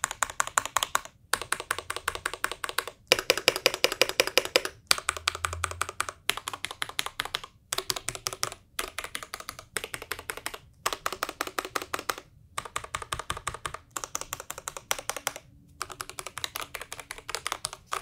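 Dustsilver D84 75% mechanical keyboard with pre-lubed Gateron switches and PBT keycaps being typed on hard: runs of rapid key clacks broken by short pauses. It is a test for ping or resonance in the chassis, and the clacks come through clean, with no weird noises from the board.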